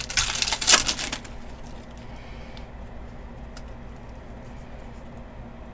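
Trading cards and their foil packs being handled: a short burst of crinkly rustling in the first second or so, then only a few faint clicks.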